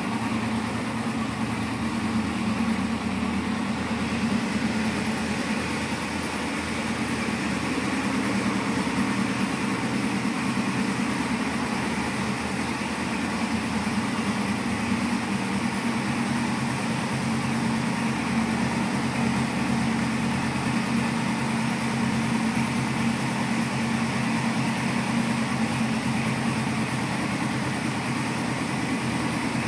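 2007 Suzuki GS500F's air/oil-cooled parallel-twin engine idling steadily.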